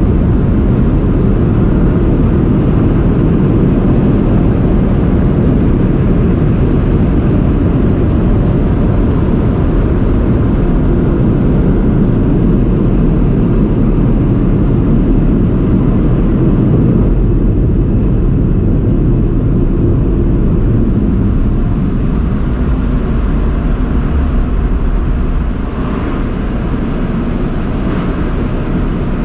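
Car wash dryer blowers running: a loud, steady rush of air, heaviest in the low end, easing slightly near the end.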